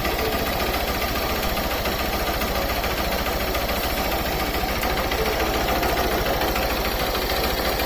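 Honda Fan 150 single-cylinder motorcycle engine running with a fast, even ticking clatter, the 'tac tac tac' it makes when restarted warm after a rest. Some mechanics blamed the clutch housing, whose weakened springs let the clutch rub inside it; another blamed the engine's top end.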